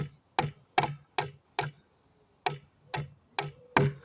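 Hammer blows knocking a rusty nail out of a pallet plank: about nine sharp strikes at roughly two and a half a second, with a short pause before the last four, and the final strike the loudest.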